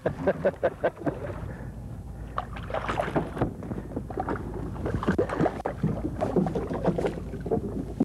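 Water slapping against a small boat's hull, with wind on the microphone and scattered short knocks, while a hooked fish is fought on rod and reel.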